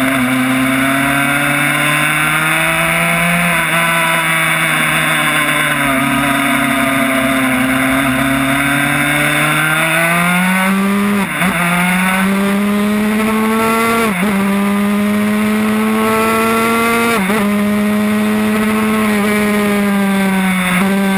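Yamaha YZ85 two-stroke single-cylinder engine in a Honda RS125 road-race bike, running under power at a steady, slowly rising pitch through a long corner. It then revs up hard and shifts up three times in quick succession in the second half, each shift a brief sharp drop in pitch before the revs climb again.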